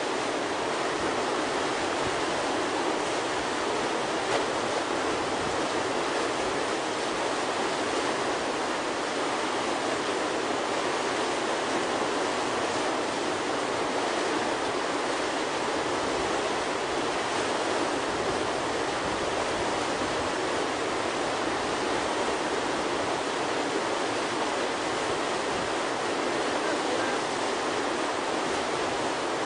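River whitewater rushing and churning steadily through a play hole, an unbroken rushing noise.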